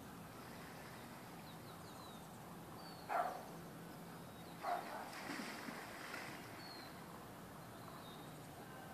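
Faint outdoor background with small birds chirping high and thin now and then. Two short, sharp sounds stand out, about three and four and a half seconds in, the first the loudest.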